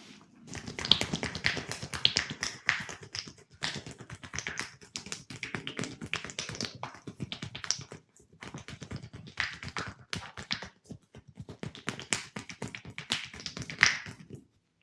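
Rapid percussive hand massage: hands tapping and chopping on the body, many quick strikes a second, in runs with short breaks.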